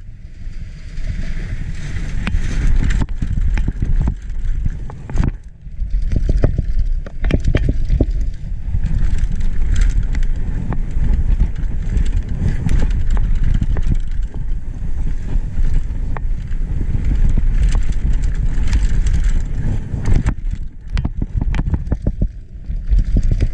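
Mountain bike descending a dirt trail at speed: tyres rumbling over the ground, constant wind buffeting the microphone, and frequent sharp rattles and clacks from the chain and bike over bumps.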